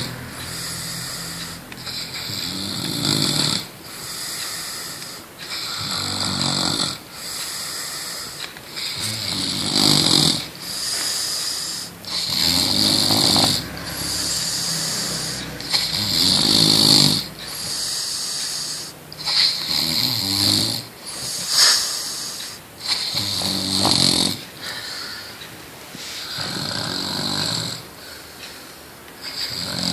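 Snoring during sleep: a low, rattling snore about every three seconds, with a hissing breath between snores.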